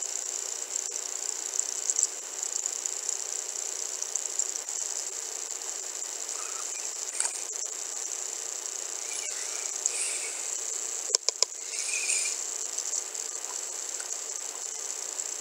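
Steady high-pitched hiss over a faint low hum, with a quick run of sharp clicks about eleven seconds in.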